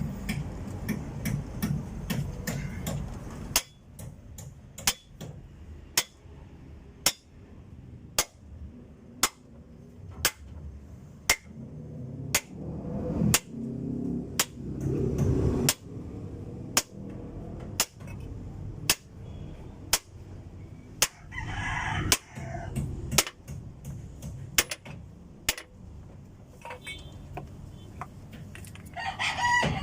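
Hammer blows about once a second on a wooden block, driving a cylinder liner into an Isuzu 4BC2 diesel engine block. A rooster crows about two-thirds of the way through and again at the end.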